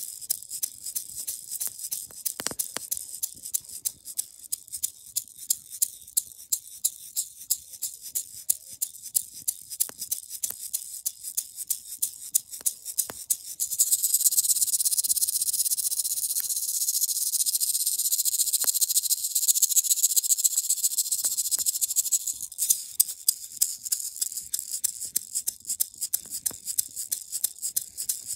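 Handheld rattle shaken in a steady beat of about two to three shakes a second, switching to a fast continuous shake for several seconds midway before returning to the beat.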